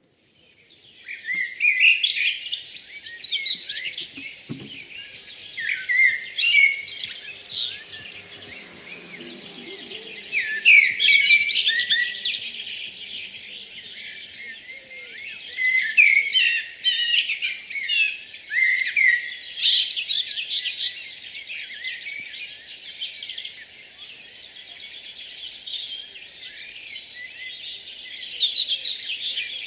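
Forest birds singing, quick chirps and trills coming in bursts every few seconds, over a thin steady high-pitched hum.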